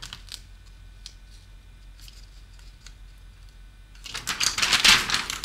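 Small objects clicking faintly as they are handled at a desk over a low steady hum. About four seconds in there is a loud rustling scrape lasting about a second, as a hand sweeps across a paper notebook.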